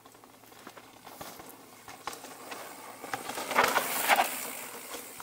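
A mountain bike rolling past on a dirt trail: tyres crunching over dirt and small stones, with scattered clicks. It grows louder, is loudest about three and a half to four seconds in as the bike passes close, then fades.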